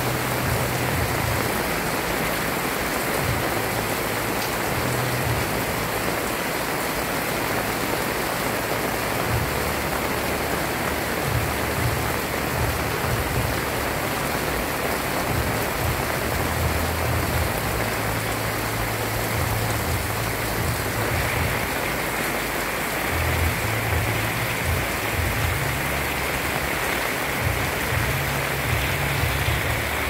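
Heavy rain pouring steadily onto a paved street and rooftops.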